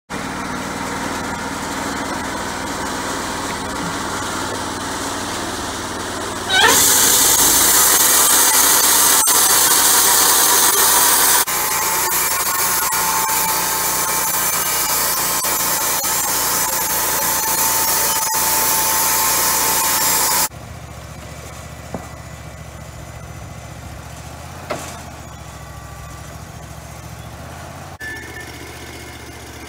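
Wood-Mizer LT40 portable band sawmill running. A steady engine note gives way, about a quarter of the way in, to a much louder, hissy stretch of the blade cutting through a log, with a steady whine. For the last third the engine runs much more quietly at idle.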